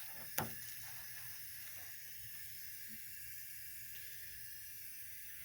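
Faint steady hiss, with a single sharp click about half a second in.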